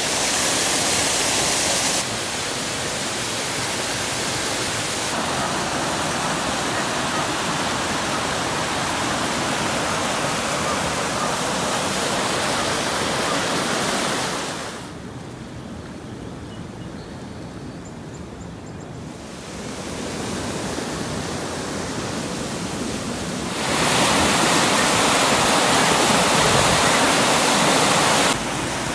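Storm runoff rushing and churning through drain outfalls and a culvert: a steady noise of fast-moving water. Its loudness jumps abruptly several times, with a quieter stretch about halfway through and the loudest rushing near the end.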